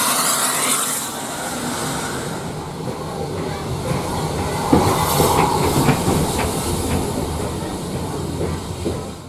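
A steam locomotive lets off a loud hiss of steam for about the first second. Then comes the low rumble of the train, with scattered knocks and clanks, heard from inside a vintage carriage.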